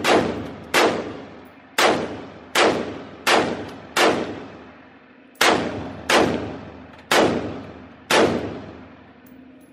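AR-style pistol fired in semi-automatic, about ten shots a little under a second apart with a short pause midway, each shot echoing off the walls of an indoor shooting range.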